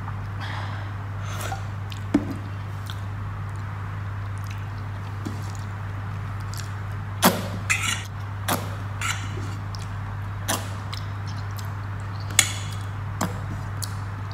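Eating by hand: fingers wiping a plate and being licked clean, heard as a scattering of short wet smacks and clicks over a steady low hum.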